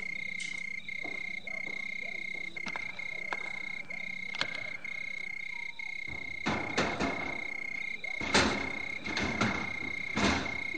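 Night-time ambience sound effect: a steady high-pitched trill of insects and frogs, broken by short regular gaps. From about six seconds in come several knocks and short rustling bursts.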